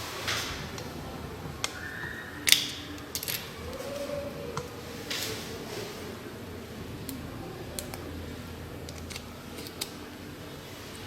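Scattered small clicks and taps of hard objects being handled at a repair bench, about a dozen in all, the sharpest one about two and a half seconds in.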